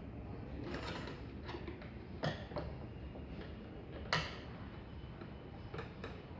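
Scattered small mechanical clicks and knocks over a low steady background, the sharpest about four seconds in.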